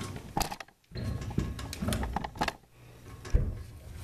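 Metal clicks and clanks from the wood stove insert's door and latch being worked, during a paper-strip test of the seal of a new fiberglass rope gasket.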